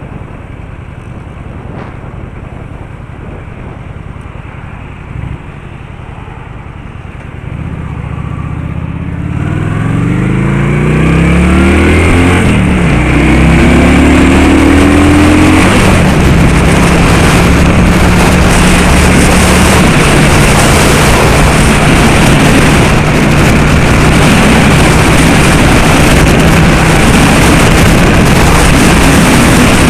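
Car engine accelerating hard, its pitch rising in steps as it shifts up through the gears, then running steadily at speed under loud road and wind noise.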